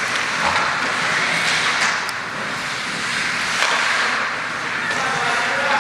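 Ice hockey rink sound: skates scraping and carving across the ice in swells of hiss, with a few sharp clicks of sticks or puck.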